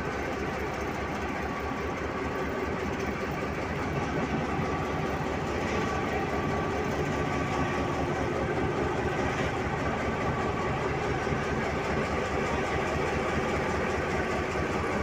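Diesel locomotive engine idling close by, a steady low throb with a drone over it, while a passenger train rolls past on the next track. It gets a little louder about four seconds in.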